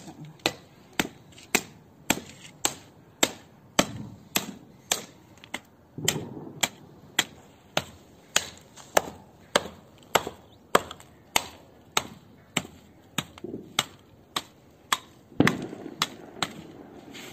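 Hatchet chopping in steady repeated strokes, about two sharp blows a second.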